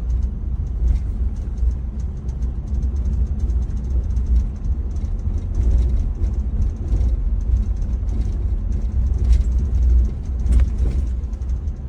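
Lexus GX550 cabin noise while driving: a steady low road rumble with rapid, irregular light ticking and rattling from the cabin trim, the strange noise from the driver's side and rear cabin area. A sharper tick comes about ten and a half seconds in.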